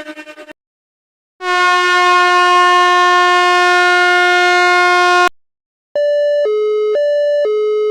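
Sound effects in sequence: a pulsing tone dying away, then after a short gap a loud, steady horn-like tone held for about four seconds that stops suddenly. After another short gap a two-tone hi-lo siren starts, switching between a high and a low pitch about twice a second.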